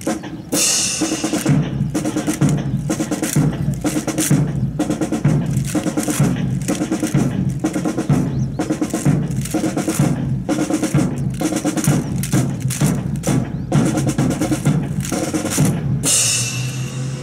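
Percussion section playing a rhythmic drum cadence of evenly spaced snare and bass-drum strokes, with a loud crash about half a second in and another near the end.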